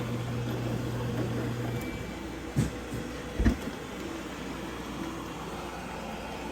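Hermitlux countertop dishwasher running with a steady whirring noise. A low hum drops out about two seconds in, and two brief knocks follow about a second apart.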